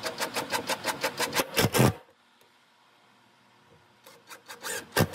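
Cordless impact driver driving a wood screw into a pine board, its impacts a rapid stream of clicks. The first run lasts about two seconds and ends in its loudest burst as the screw seats. After a short pause, a second, shorter run of clicks comes near the end.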